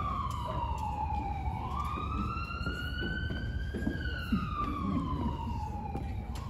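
Wailing siren, its pitch falling, rising and falling again in slow sweeps of about two and a half seconds each.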